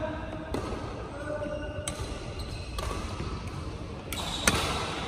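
Badminton rackets hitting a shuttlecock back and forth in a rally: about five sharp smacks roughly a second apart, the loudest near the end.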